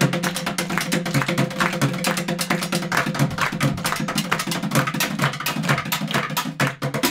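Fast drumming with sticks on upturned plastic buckets and metal canisters, junk percussion played in a dense rapid rhythm, over a steady low tone. The hits thin out briefly near the end.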